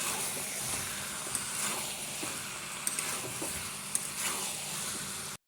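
Chicken curry with capsicum and potatoes sizzling in oil in a pan while it is stirred, with light, scattered clicks of the spoon. The sound cuts off abruptly just before the end.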